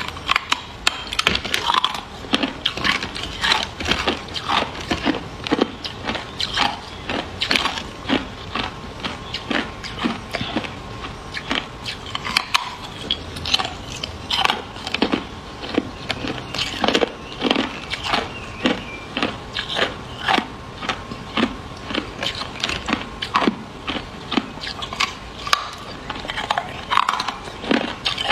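Hard clear ice being bitten and crunched between the teeth: a close, dense run of sharp cracks and crunches, several a second, that keeps going.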